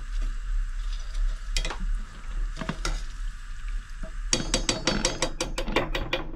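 Batter-coated potatoes deep-frying in hot oil, a steady sizzle, while a utensil knocks and stirs in the pan: a few single clicks, then a quick run of clinks from about four seconds in.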